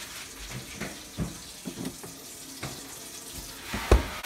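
Water running from a tap as a steady hiss, with scattered knocks and clunks of things being handled and a heavier thump near the end.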